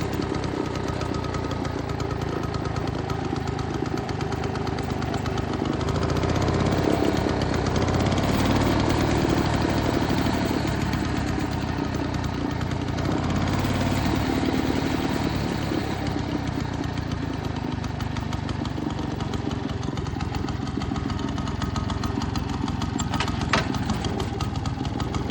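1947 Frazer rototiller's engine running steadily, its sound swelling a little twice, with one sharp click near the end.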